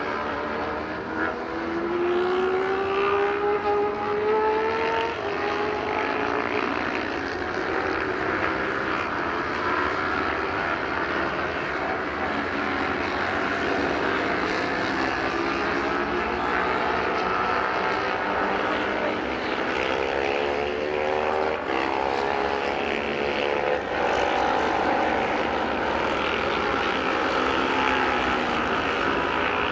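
Several racing motorcycle engines running hard at high revs, their pitch climbing through the gears and dropping on downshifts as the pack laps the road course. The sound is a steady blend of overlapping engine notes.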